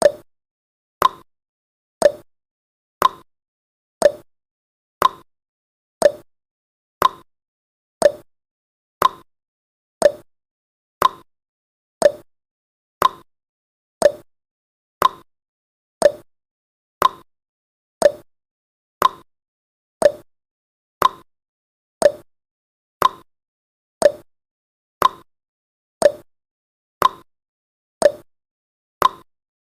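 Countdown timer tick sound effect: one short tick every second, evenly spaced.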